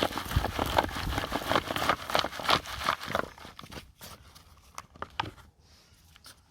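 Potting mix and potatoes being handled: a dense rustling and clattering of soil and tubers for about three seconds, then a few scattered knocks of potatoes.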